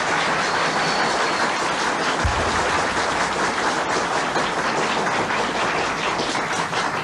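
Audience applauding steadily, a dense clatter of many hands clapping, after a speaker's punchline.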